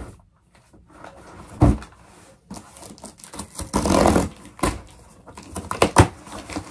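A cardboard shoebox being handled and opened: several sharp knocks and a scratchy rasp lasting about half a second around the middle.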